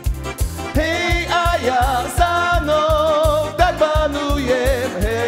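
Live csárdás band music: a steady low beat of bass notes from the keyboards and drums under a wavering melody line with heavy vibrato, and no words sung.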